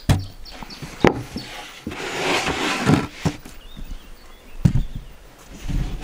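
Plywood lid being set onto a wooden crate: sharp wood-on-wood knocks at the start and about a second in, a longer scrape of the board sliding across the top around two to three seconds, and another knock near five seconds.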